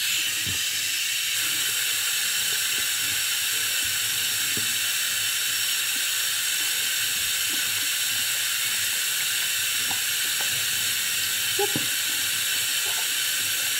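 Bathroom sink tap turned on suddenly and running in a steady hiss while slime is washed off hands under it, with a few faint knocks of hands in the basin.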